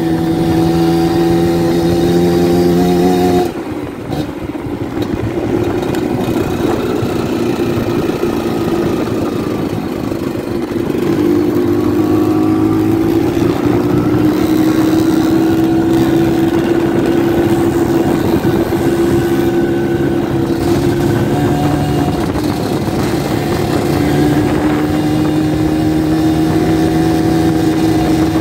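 Trail motorcycle engine running while riding, its pitch rising and falling gently as the speed changes.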